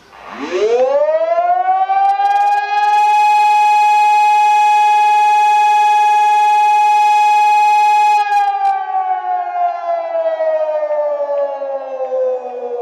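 Bulgarian civil defense siren sounding a warning. Its pitch climbs quickly as it winds up over about two seconds, holds one steady tone for about six seconds, then begins a slow falling wind-down.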